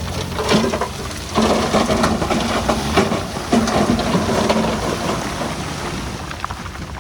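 Diesel heavy machinery working with stone fill: an engine running under load while stones rattle and knock, fading slightly near the end.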